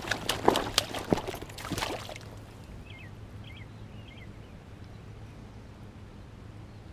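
Crackling and splashing for about two seconds as a person wades into shallow pond water after a fish. It then falls quiet, with a few short bird chirps.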